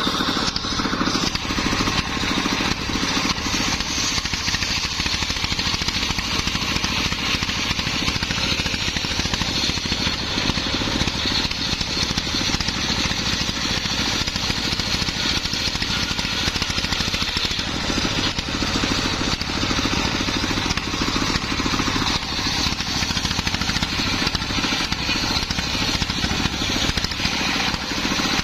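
Homemade belt-driven circular saw ripping a teak log lengthwise, the blade cutting steadily through the wood over the constant running of the stationary diesel engine that drives it.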